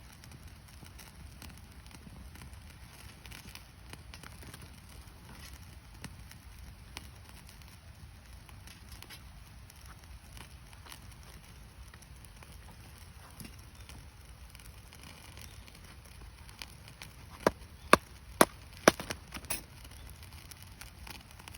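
Campfire of gathered, rain-damp firewood burning with faint scattered crackles, then a quick run of loud, sharp pops about three-quarters of the way through as moisture in the wood boils out and the wood bursts.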